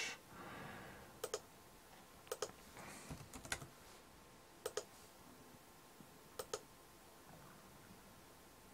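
Faint clicks of a computer mouse and keyboard, single or paired clicks a second or two apart, with a quick run of key taps about three seconds in.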